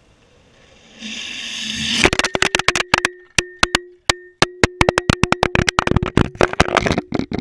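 Longboard wheels rolling on rough concrete, the rushing noise growing quickly as the board nears the road-level camera. About two seconds in, a rapid, uneven run of sharp knocks and rattles begins as the camera is knocked and jostled against the pavement, with a faint steady ringing tone beneath.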